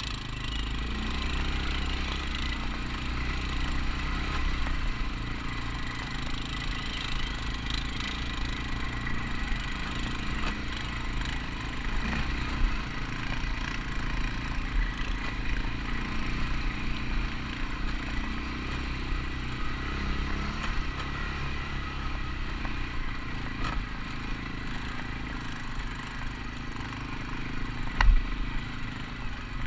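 ATV engine running at low speed, with stones crunching and clattering under the tyres as it crawls over rocky ground. A sharp knock near the end is the loudest sound.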